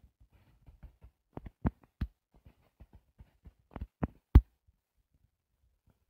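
Sharp taps of a fingertip or stylus on a tablet touchscreen during drawing, picked up through the device itself: a handful of clicks about a second and a half in, and a louder cluster around four seconds in.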